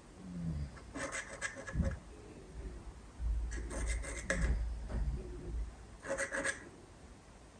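A knife cutting slits into rolled-out bread dough, each cut a short scratchy scrape as the blade drags through the dough against the counter. Three cuts, a couple of seconds apart.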